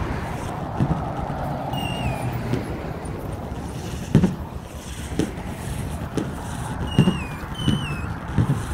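Road traffic passing, with wind on the microphone and low thuds of walking footsteps. A few short, wavering high chirps come through now and then.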